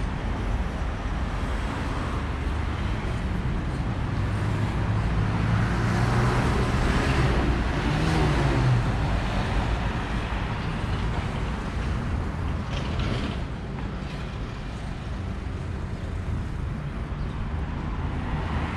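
Road traffic: cars running along the street beside the walkway, with one engine passing louder about six to nine seconds in.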